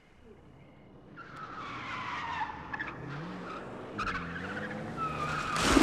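Car tyres screeching as a car skids up at speed, its engine revving, ending in a loud crash right at the end as it hits the house.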